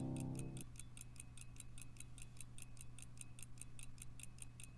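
Mechanical pocket watch ticking evenly at about five ticks a second, faint and close up. Background music fades out in the first second, leaving the ticking alone.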